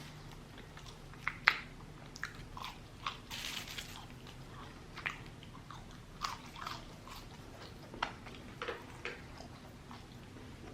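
Close-up eating sounds from a fried chicken sandwich: a bite and chewing, with many small crunches and crackles scattered through, about one or two a second.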